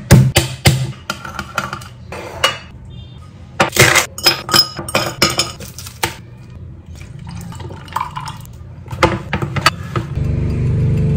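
Kitchen food-prep sounds: sharp knocks of a knife chopping garlic on a wooden cutting board, then clinks of glass and dishes and milk being poured into a glass. A steady low hum sets in near the end.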